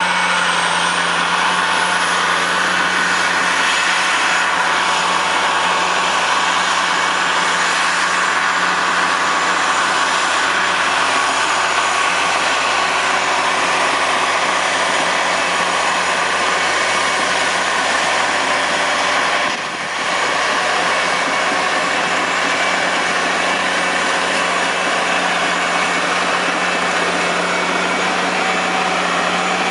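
Diesel engine of a tracked drainage-tile plow running steadily under load as it lays plastic field tile, a continuous engine noise with a brief dip about two-thirds of the way through.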